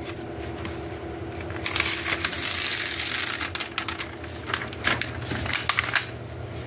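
Paper and sheets rustling and crinkling with scattered light clicks and taps, loudest in a burst about two to three and a half seconds in, as a freshly pressed comic book is unwrapped from its boards and silicone release paper. A low steady hum runs underneath.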